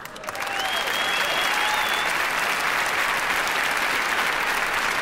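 Audience applauding steadily, with a high whistle over the clapping from about half a second to two seconds in.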